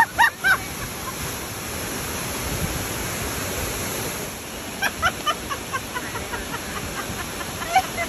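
Steady rush of waterfalls, with brief voices of people in the boats at the start and again about five seconds in.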